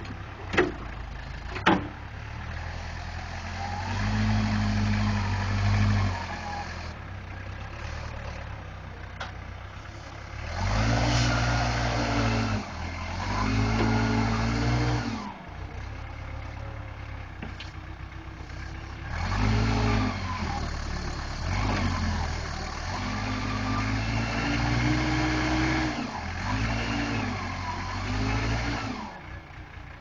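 Case 480C backhoe's diesel engine repeatedly revving up and dropping back, each rev lasting a second or two, as the machine's hydraulics work against the heavy dozer blade. There are two sharp knocks in the first two seconds.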